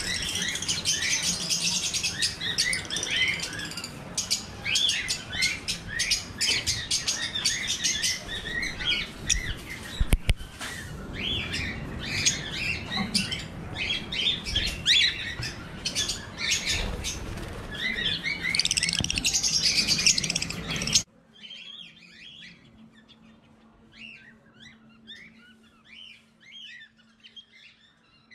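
A flock of budgerigars chattering and chirping densely and loudly, with one brief sharp knock about ten seconds in. About two-thirds of the way through it cuts off abruptly to much fainter scattered chirps over a low steady hum.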